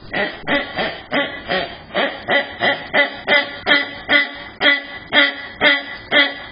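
Door lever handle being jiggled over and over, the latch rattling in a steady rhythm of about three strokes a second.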